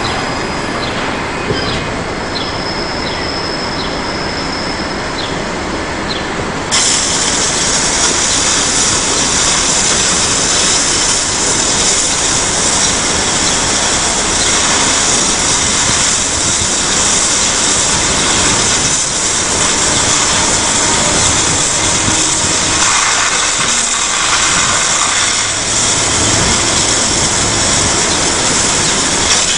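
High-pressure hose jet spraying onto a steel precast-concrete mould: a loud steady hiss that starts suddenly about seven seconds in. Before it, a steady mechanical din with faint regular chirps.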